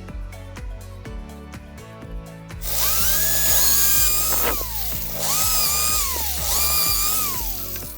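Small electric power tool motor run in three short bursts, each whine rising in pitch as it speeds up, holding, then falling as it winds down, over background music.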